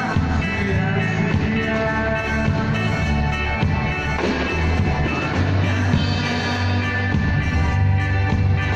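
Live rock band playing through a PA, with electric guitar and a drum kit, and a man singing into a microphone in parts.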